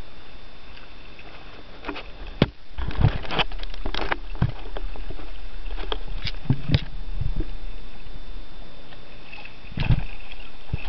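Kayak moving under sail: a steady low rumble with irregular slaps and splashes of water against the hull. The slaps bunch up between about two and five seconds in, come again a little after six seconds, and once more near the end.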